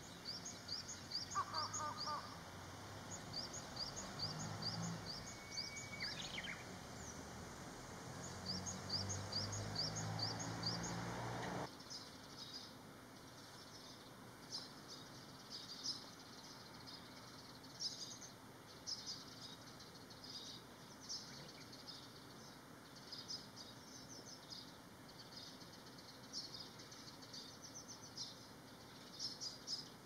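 Small birds chirping in quick runs of short, high notes over a steady outdoor hum. About twelve seconds in the hum drops away abruptly, and scattered sparrow chirps carry on.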